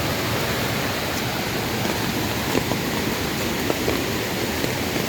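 Steady rushing of a forest stream, with a few faint ticks.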